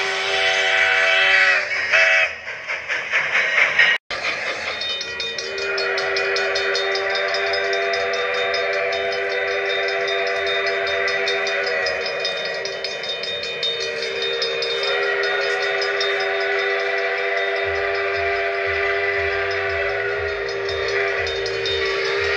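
Steam locomotive chime whistle sounding a multi-note chord. A first blast breaks into short pulsing toots, cuts off abruptly about four seconds in, then gives way to one long held chord. A low rhythmic beat joins under the whistle in the last few seconds.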